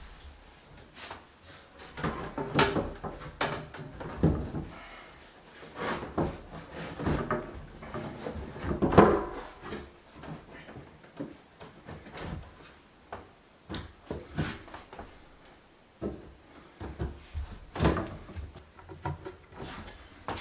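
Irregular wooden knocks and clatter of a wooden table being handled and worked on, loudest about two, nine and eighteen seconds in.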